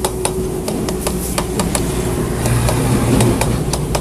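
Electric heat gun running with a steady motor hum and rush of hot air, heating the motorcycle's engine side cover to free it, with light clicks and taps from handling the tool and cover; it cuts off just at the end.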